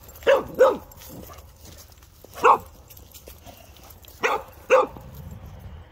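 A dog barking: five short barks, two near the start, one in the middle and two more about four seconds in.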